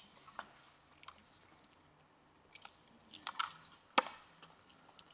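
A person biting into and chewing a brisket taco: faint, wet mouth sounds with scattered small clicks and one sharp click about four seconds in.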